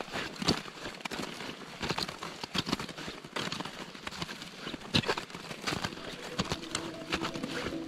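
Crampon footsteps crunching on the granular ice of an iceberg's surface: an uneven run of sharp crunches, a few a second, from people walking.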